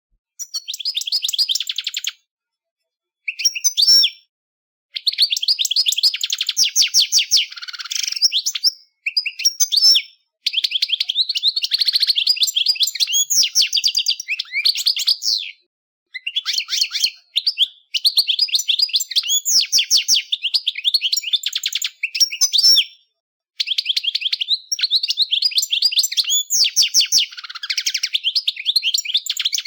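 European goldfinch singing: fast, twittering trills in phrases of a few seconds, each broken off by a short pause.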